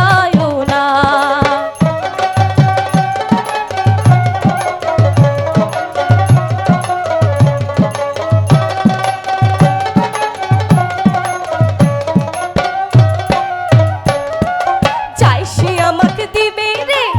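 Bhawaiya folk music: a drum keeps a steady beat under a sustained melody line, with wavering melodic notes near the end.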